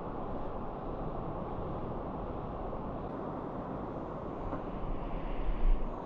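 Steady rush of a fast mountain stream, with a brief low rumble swelling near the end.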